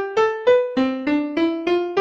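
Melodic railroad-crossing warning chime sound effect: a piano-like tone playing separate notes about three a second in a climbing run, dropping back to the low starting note a little before halfway through and climbing again.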